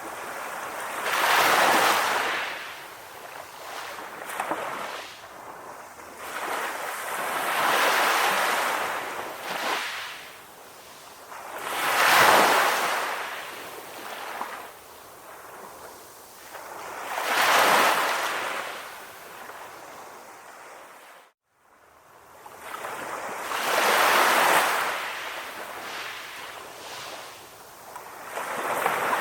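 Sea waves breaking on a beach, each one swelling up as a rushing hiss and then washing back, about one every five to six seconds. About two-thirds of the way through, the sound cuts out to near silence for a moment, then comes back.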